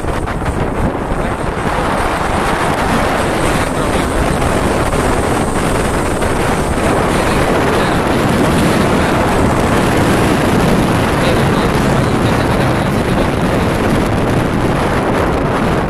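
Steady wind rushing over the microphone of a motorcycle in motion, mixed with the bike's engine and road noise.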